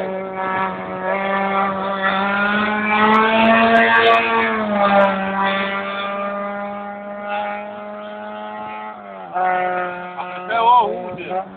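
Racing car engine held at high revs as it climbs the course, a steady high note whose pitch dips about five seconds in and again about nine seconds in.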